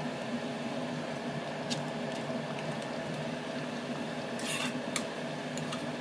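Steady mechanical hum over a curry simmering in a metal kadai, with a few light clicks and a short splash of liquid poured into the pan about four and a half seconds in.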